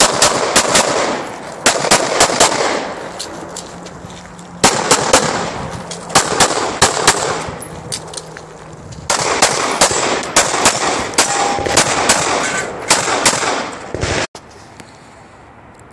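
Semi-automatic pistol fired in rapid strings of shots at a USPSA stage, with short pauses of one to two seconds between the strings. The shots ring with a short echo. The shooting stops about fourteen seconds in.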